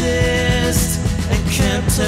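Background music: a song with a steady drum beat and cymbals.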